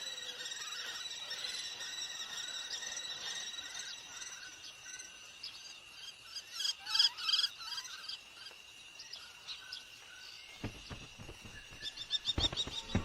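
Birds calling over a steady high-pitched insect drone, with a short repeated note in the first half and a burst of loud chirps about seven seconds in. Near the end come several sharp knocks, then rapid chirping.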